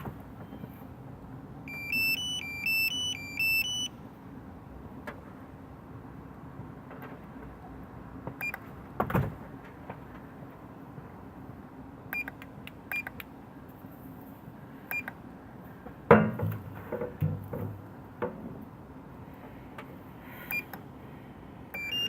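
A plug-in MX-5 diagnostic tool's buzzer beeping as it runs a fault scan. About two seconds in there is a quick run of beeps stepping up and down in pitch, then single short beeps at irregular gaps. A few handling knocks come through over a steady low hum.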